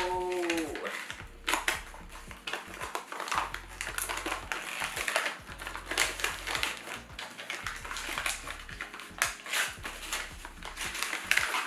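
Paper gift wrapping rustling and crinkling as it is handled and unwrapped by hand, in irregular crackles with small clicks.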